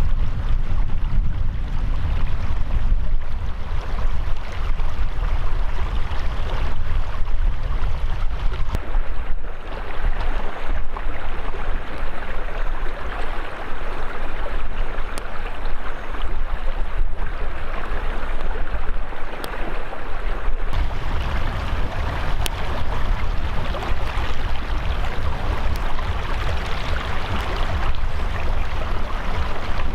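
Steady rushing of a mountain stream, with a heavy low rumble under the flowing water.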